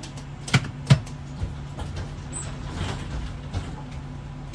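Tram standing at an underground platform, its equipment giving a steady low hum, with two sharp knocks about half a second apart around a second in and a few softer thumps after.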